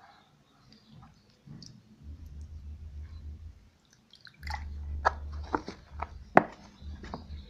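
Low rumble of a phone being handled, then a quick series of sharp clicks and crackles over the last three seconds as a hand works in a thin plastic tray of water and algae, the loudest about six seconds in.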